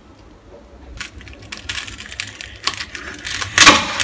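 Kitchen knife cutting through the crisp, puffed crackling skin of roast pork belly: dense crunchy crackling that starts about a second in and grows louder toward the end, the sign of well-crisped skin.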